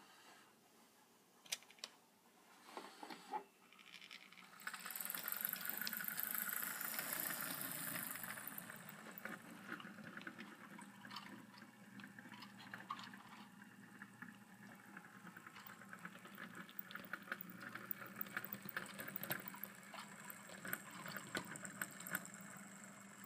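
HO scale model train running on its track: a steady low motor hum with a fast patter of small clicks, after a few scattered knocks in the first seconds. A louder hissing rush comes in about five seconds in and eases off by about eight seconds.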